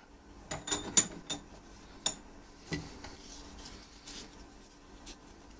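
Steel locking pliers clinking sharply against metal as they are handled and repositioned on a rusted-on pistol barrel clamped in a vise. About six bright, ringing clinks fall in the first three seconds, the loudest about a second in, followed by faint handling noise.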